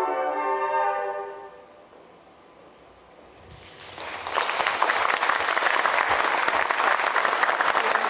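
A held chord from a flute ensemble fades away in the first second or so. After a brief hush, audience applause starts about four seconds in and keeps going.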